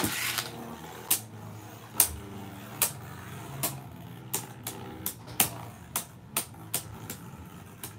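Two Beyblade Burst tops spinning in a plastic stadium with a low steady whir, clacking together in sharp hits about once a second, coming more often toward the end.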